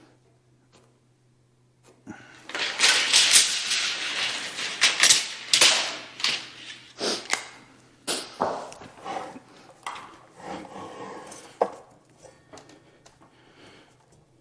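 Clattering, rattling and knocking of objects being handled, starting about two seconds in, densest for several seconds and then thinning to scattered knocks.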